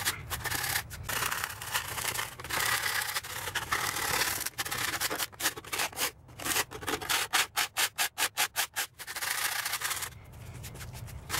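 A hand scraper rasping across freshly cast, still-soft concrete in back-and-forth strokes, shaving down high spots to flatten the surface. Longer strokes at first, then a run of quick short strokes, about five a second, before it eases off near the end.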